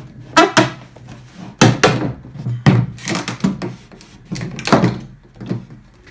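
Hollow knocks and clunks of a 40A (1½-inch) PVC pipe assembly and its fittings being handled and turned, about a dozen sharp strikes, some with a short hollow ring.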